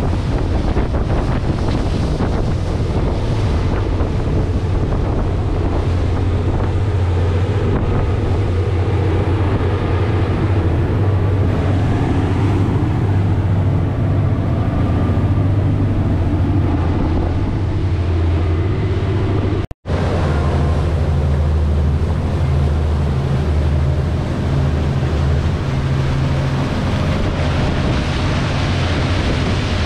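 Outboard motors running steadily as the boat trolls at high speed, with the rush of the wake and wind buffeting the microphone. The sound drops out for an instant about twenty seconds in.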